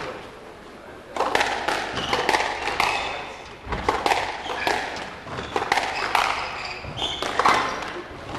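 Squash rally: repeated sharp knocks of the ball off racquets and the court walls, mixed with the players' footsteps on the wooden court floor.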